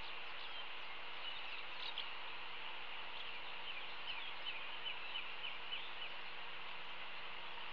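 A bird chirping: a quick run of short, high chirps, each falling in pitch, about four a second, over a steady hiss of background noise.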